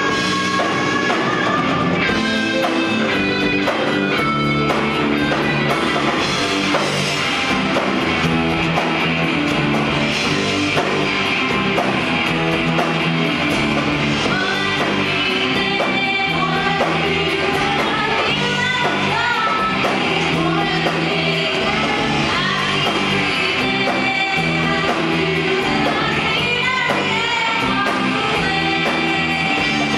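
Live rock band playing a classic rock cover: a woman singing lead over electric guitar, bass guitar and a drum kit, loud and steady throughout.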